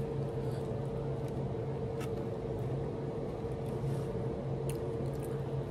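A steady low mechanical hum, like a running motor or fan unit, with a few faint clicks over it.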